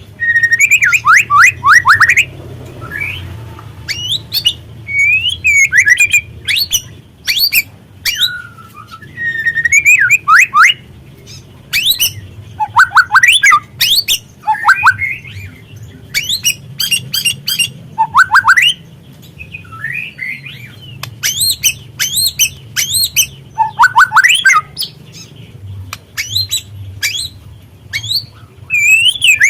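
Juvenile white-rumped shama chattering in loud bursts: rapid runs of quick downward-sweeping notes alternating with sharp high chirps. A steady low hum runs underneath.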